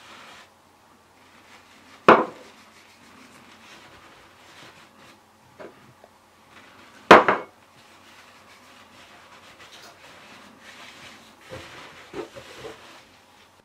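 Hands working a loaf of dough into a linen couche cloth in a tray: soft cloth rustling and handling noise, broken by two sharp knocks, one about two seconds in and another about five seconds later, with a few lighter taps near the end.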